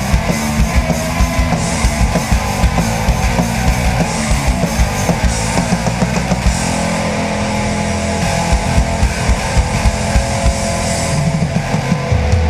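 Live rock band playing an instrumental passage with distorted electric guitar and a drum kit beating steadily.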